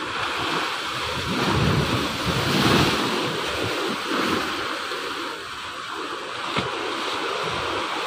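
Sea waves breaking and washing up a sandy beach among rocks, the foamy surge swelling loudest about two to three seconds in and then running back. Some wind rumbles on the microphone, and a single short tick sounds late on.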